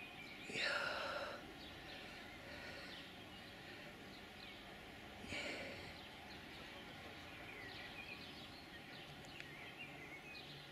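Quiet open-air ambience with faint scattered bird chirps. Twice, about a second in and again after five seconds, a louder short sound falls in pitch.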